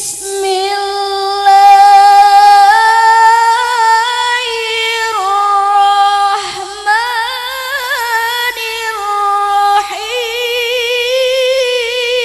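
A Quran reciter's solo voice chanting in melodic tilawah style: long, high held vowels ornamented with wavering melismatic turns, in three drawn-out phrases with short breath breaks, the last pitched a little higher.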